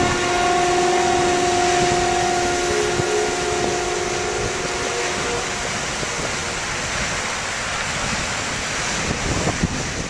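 Heavy storm surf breaking and washing up a pebble beach: a steady, loud roar of rushing water. A held chord from background music sounds under it and dies away about halfway through.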